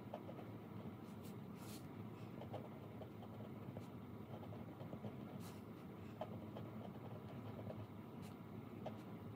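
Pen scratching on paper in brief strokes while writing on a calendar sheet, over a steady low hum of room noise.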